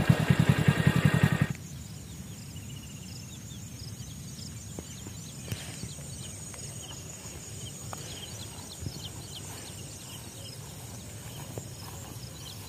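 A motorcycle engine running with a rapid pulse, cut off about a second and a half in. Then quiet open-country sound: small birds chirping, a thin steady high tone, and now and then the soft steps of a man walking through dry grass.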